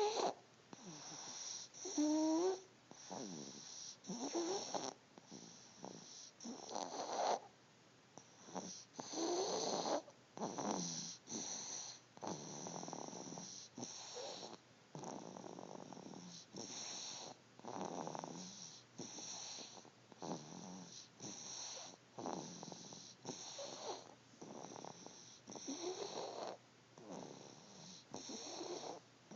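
A sleeping baby snoring, short snoring breaths repeating about once a second. A couple of brief squeaky, pitched sounds come in the first few seconds.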